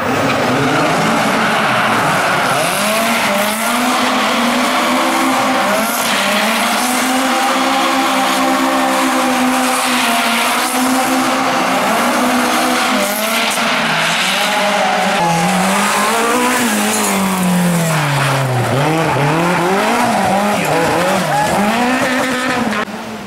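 Rally car engine revving hard on a stage, its pitch climbing and falling as it changes gear and lifts off. There are several quick up-and-down swings about two thirds of the way through. The sound drops away suddenly just before the end.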